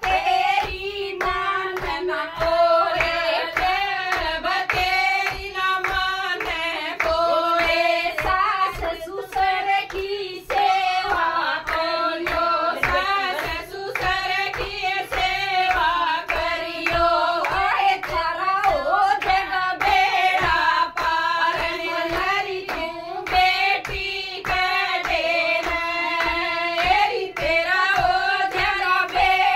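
Women singing a devotional folk bhajan, accompanied by steady rhythmic hand clapping keeping the beat.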